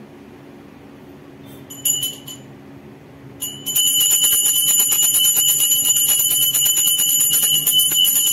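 A puja handbell rung during aarti: a couple of single strikes about two seconds in, then continuous fast ringing from about four seconds in.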